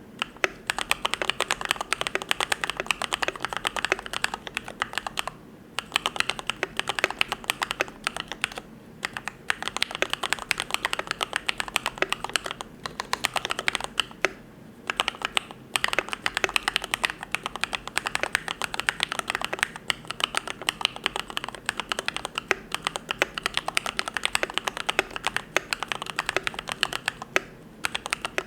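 Continuous fast typing on a YMD75 V3 custom mechanical keyboard with Gateron Yellow linear switches: a dense run of key clacks with a few short pauses, the longest about halfway through.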